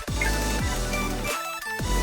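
Upbeat electronic background music with a heavy bass beat and bright synth melody, breaking off briefly about three-quarters of a second before the end.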